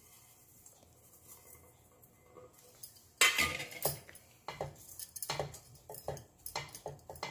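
A metal spatula clatters and scrapes against a stainless-steel pan as shredded cabbage is stirred, starting with a loud clatter about three seconds in and carrying on in irregular clinks and scrapes.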